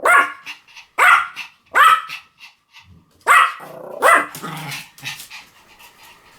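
Pomeranian barking: five sharp, high-pitched barks at uneven intervals, then a couple of fainter ones about five seconds in.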